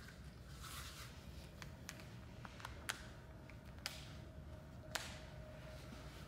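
Leather arm guard being handled and strapped onto a forearm: soft rustling with three short sharp clicks about a second apart.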